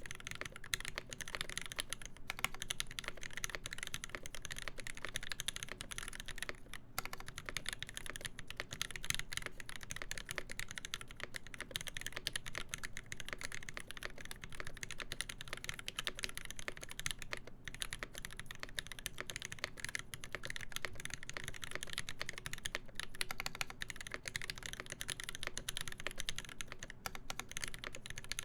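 Continuous fast typing on a KBD8X MKII mechanical keyboard with a full brass plate, lubed Alpaca linear switches and GMK keycaps: a dense run of keystroke clacks with a few brief pauses.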